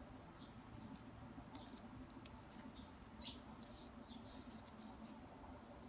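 Faint, brief rustles and scrapes of ribbon strips being folded and handled between the fingers, scattered irregularly over a low steady background hum.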